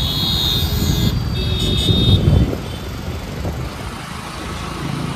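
Traffic noise heard from a moving motorcycle or scooter: steady engine noise and wind rumble on the microphone, with other vehicles passing. A high steady tone sounds twice in the first two and a half seconds.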